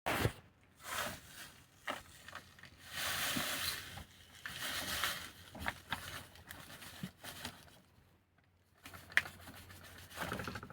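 Rustling and crinkling of a sugar bag being handled, with a few small clicks and knocks.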